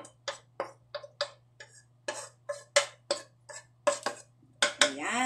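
Spatula scraping and tapping in a frying pan, clearing out the leftover bits of cooked mushroom and carrot. It comes as an irregular run of short, sharp clicks and scrapes, about three a second.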